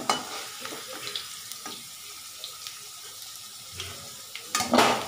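Potato wedges sizzling in hot mustard oil in a steel kadai, a steady hiss with light clicks and scrapes as they are lifted out of the oil. A brief louder burst of noise comes near the end.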